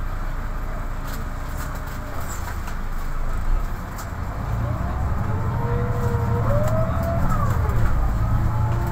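MAN NL263 city bus running under way, heard from the driver's position, with its engine rumble growing louder from about four seconds in as it accelerates. Over it a drivetrain whine glides up and falls back in pitch several times.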